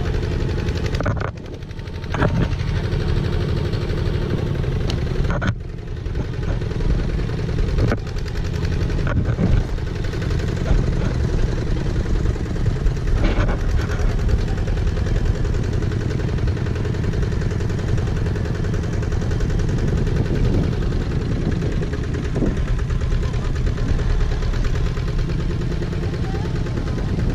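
Tractor engine running steadily, heard from the loaded trailer it tows along a bumpy dirt track, with a few short knocks.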